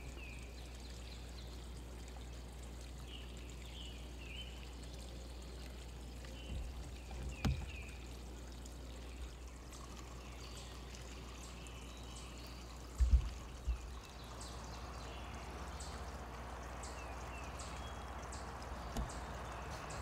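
Outdoor ambience: a steady background hiss with faint, short bird chirps scattered through it. A few low thumps, the loudest about thirteen seconds in.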